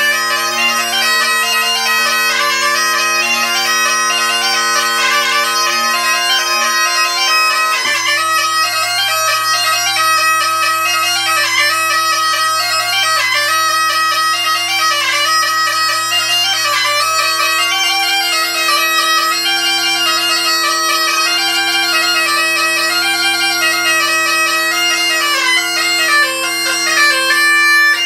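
3D-printed PLA Great Highland bagpipe playing a tune: the chanter melody runs over the steady drones, and the drone sound shifts about eight seconds in. It sounds rough because the tenor drones are tuned incorrectly and the reeds are unevenly balanced, one taking too little blowing strength and the other too much.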